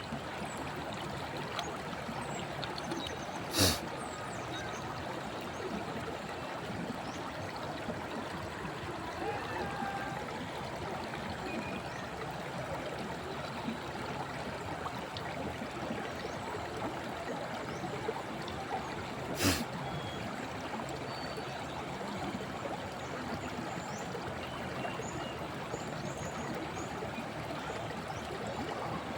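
River water flowing steadily over stones, a constant rushing trickle. Two short, sharp knocks stand out, one a few seconds in and one about sixteen seconds later.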